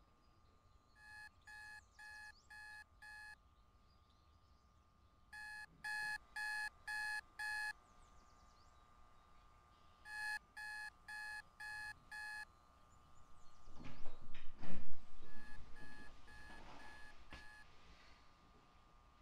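Digital clock radio alarm beeping in groups of about five quick beeps, roughly two a second, with pauses of a couple of seconds between groups. Near the end a louder stretch of knocks and rustling comes in while the alarm keeps beeping faintly.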